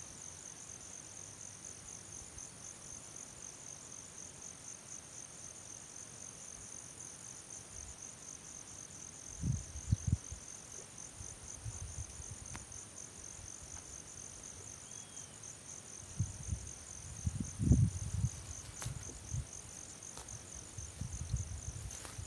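Crickets chirping in a steady, fast-pulsing high trill. Dull low thumps come about ten seconds in and again in clusters through the last several seconds.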